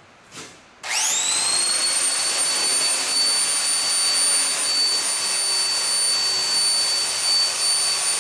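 DeWalt power drill switched on about a second in, quickly spinning up to full speed and then holding a steady high whine over a loud grinding hiss, as its cleaning attachment scrubs stubborn glue and dirt off car sheet metal.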